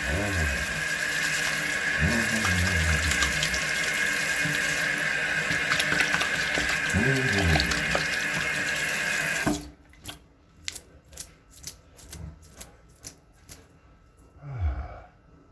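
Water running steadily from a bathroom tap, shut off abruptly about nine and a half seconds in, followed by a few light clicks and knocks.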